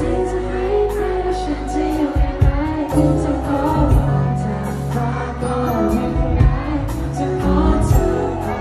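A live pop-rock band playing: a sung vocal over electric guitar, a steady bass line and drums.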